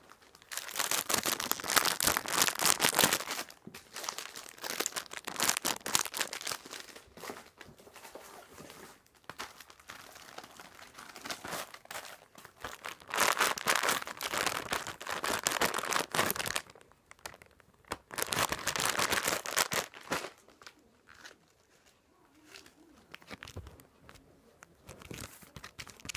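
Plastic packaging crinkling in bursts of a few seconds as squishy toys are handled, with quieter pauses between.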